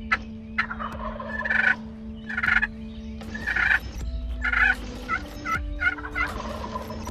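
Wild turkey toms gobbling, a run of rattling gobbles about a second apart.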